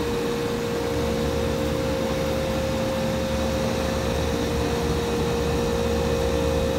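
Trane Voyager rooftop packaged unit running in test mode with both compressors enabled: a steady mechanical hum with a constant mid-pitched tone over an even rushing noise.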